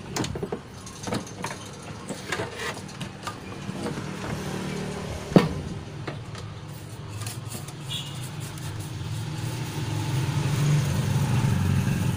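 Scattered light clicks and knocks from handling the opened TV chassis and circuit board, with one sharp knock about five seconds in. A low engine-like drone builds up through the second half.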